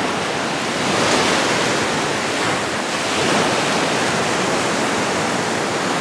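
Small waves breaking and washing up the beach in a steady rush, swelling slightly about a second in and again around three seconds.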